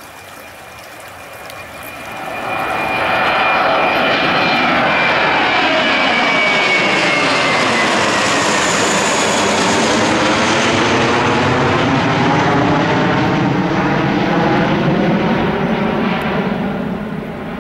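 Airbus A319-133CJ's IAE V2500 turbofans at takeoff thrust as the jet climbs out and passes overhead. The roar swells about two seconds in, holds loud with a high whine that falls in pitch as it goes over, and fades near the end as it flies away.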